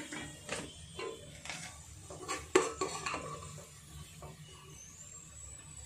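Perforated metal skimmer knocking and scraping against a metal pot while lifting deep-fried onion slices out of hot oil. There is a string of clinks, the loudest about two and a half seconds in, and they become sparse and quiet near the end.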